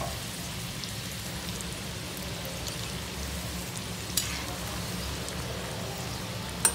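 Chicken samosas deep-frying in hot oil in a small iron kadai over a low flame: a steady sizzle, with sharp clicks of a steel slotted spoon against the pan about four seconds in and again near the end.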